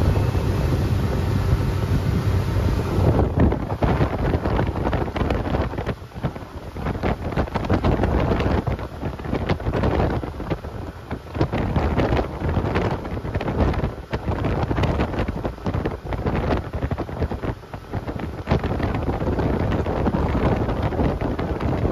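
Boat engine running under way, with wind buffeting the microphone. The steady engine tone is clear for about the first three seconds, then gusty wind noise rising and falling covers most of it.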